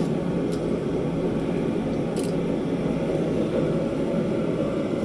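Steady low roar of a forge running, with a couple of faint light clinks.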